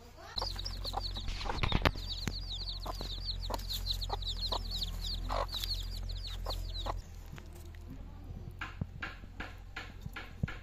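A hen and her young chicks: the chicks peep rapidly in a continuous high chirping, with a hen clucking now and then. The chirping starts about half a second in and cuts off about seven seconds in, after which only a few light clicks are heard.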